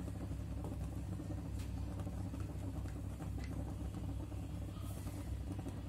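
A steady low hum runs throughout, with a few faint light taps and scrapes from a wooden spatula stirring milk and vermicelli in a pan.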